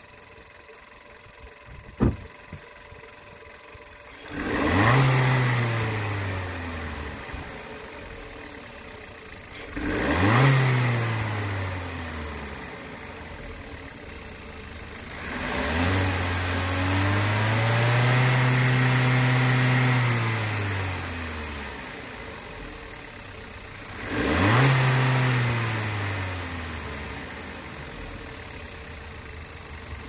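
Stock 2009 VW Golf Mk6's 1.4-litre TSI turbocharged petrol engine, heard through the open bonnet, idling and revved four times. Three are quick blips that fall back slowly to idle; the third rev is held high for several seconds before dropping. A single sharp click comes about two seconds in, before the first rev.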